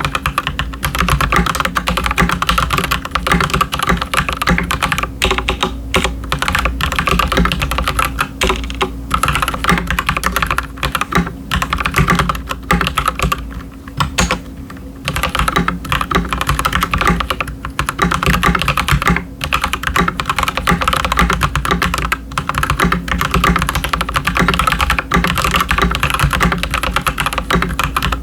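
Continuous typing on a stock Akko 3098S mechanical keyboard fitted with linear red switches (Gateron G Pro Red, with Keychron Red on the numpad) and PBT keycaps. There is a short pause in the keystrokes about halfway through.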